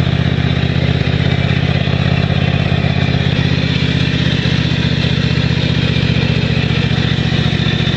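Craftsman DYT 4000 lawn tractor engine running steadily at an even speed.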